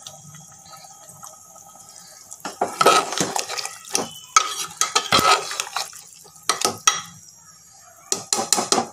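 Steel ladle stirring a wet curry of mushrooms and peas in a pressure cooker pot, scraping and clinking against the metal sides in short spells. It starts about two and a half seconds in, pauses around seven seconds, and comes again near the end.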